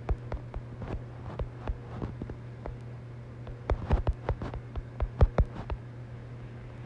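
Typing on a phone's on-screen keyboard: quick, irregular taps, thickest past the middle, over a steady low hum.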